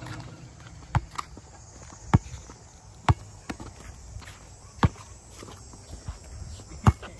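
Basketball bouncing on a hard outdoor court: five sharp smacks, unevenly spaced about one to two seconds apart, with fainter bounces between them.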